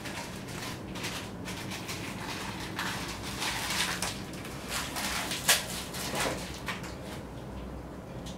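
Cat held with an anaesthetic induction mask over its face: a run of noisy, breathy bursts and rustling from about three to seven seconds in, with one sharp click in the middle, over a steady low hum.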